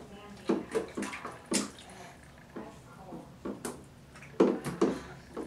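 Water splashing in a small plastic baby bathtub as a baby slaps at it with her hands: irregular splashes, the loudest about four and a half seconds in.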